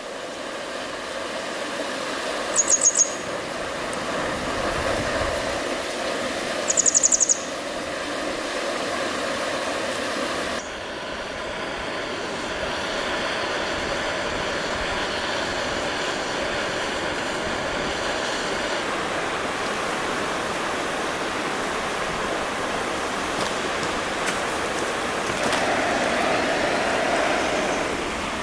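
Steady outdoor rushing noise with a small bird's short, high, rapid chirps twice, about four seconds apart. The background changes abruptly about ten seconds in.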